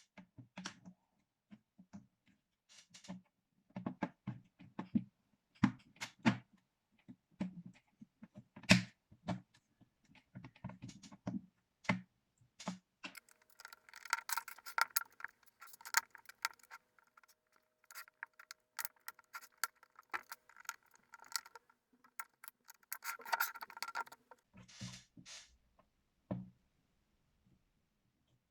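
Small clicks, taps and knocks of hands working on a laptop's case and parts, with a busier stretch of fine clicking and scraping through the middle.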